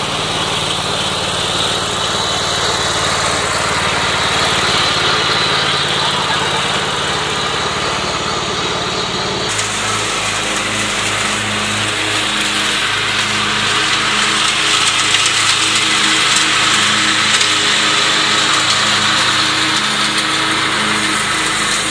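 MTD riding lawn mower's small petrol engine running steadily; its note changes abruptly about nine and a half seconds in.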